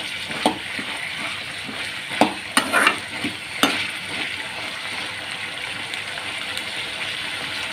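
Diced banana stem frying in oil in a metal kadai: a steady sizzle, with a steel slotted spoon stirring and scraping against the pan. The spoon knocks sharply against the pan about five times in the first half, then fades to stirring under the sizzle.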